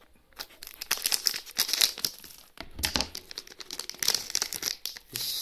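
Packaging crinkling and rustling in a run of irregular handling strokes as an electronics part is unwrapped, with a dull bump about three seconds in.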